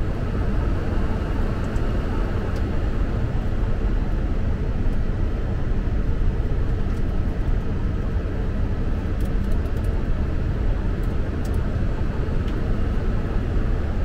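Steady flight-deck noise of a Boeing 747 in flight on approach: a constant rush of air with a low rumble underneath, unbroken and even in level.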